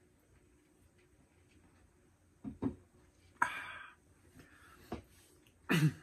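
Tabletop handling sounds. About two and a half seconds in there are two soft knocks as a drink tumbler is set down on a wooden table. A crinkly rustle follows as a plastic dipping-sauce cup is picked up and handled, and there is a short, louder sound just before the end.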